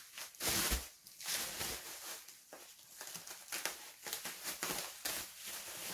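Plastic bubble wrap crinkling and rustling in irregular bursts as it is handled and pulled off a boxed set, loudest about half a second in.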